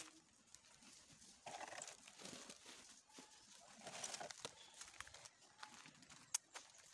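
Faint rustling and scuffing: a plastic sack being handled and footsteps on dry leaves, with a couple of sharp clicks near the end.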